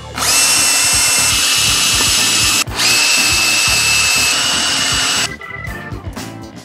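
Cordless drill running at full speed, drilling into a bolt on a truck's front steering knuckle. It makes two runs of about two and a half seconds each, with a short pause between them, and stops about five seconds in.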